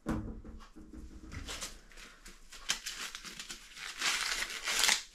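Sweetcorn husk leaves rustling, crackling and tearing as a cob is stripped by hand, the rustling growing loudest near the end. A dull bump at the very start as a husked cob is set down on the worktop.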